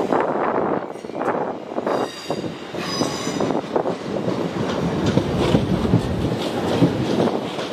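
Passenger train running over the track, its wheels clattering over the rails, with brief high-pitched wheel squeals about two to three seconds in.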